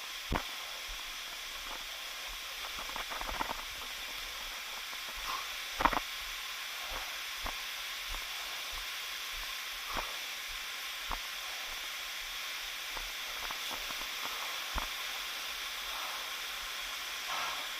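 Steady rushing hiss of a waterfall, with scattered light knocks and taps, the strongest about six seconds in.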